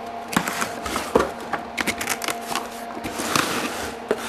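Cardboard box being opened by hand: the lid and flaps pulled open, with short rustling scrapes of cardboard and a string of small clicks and knocks. A steady low hum runs underneath.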